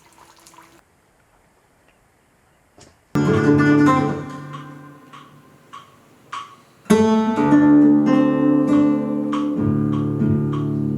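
Guitar played by strumming: near quiet at first, then a single strummed chord about three seconds in that rings and fades, a couple of plucked notes, and steady strummed chords from about seven seconds on.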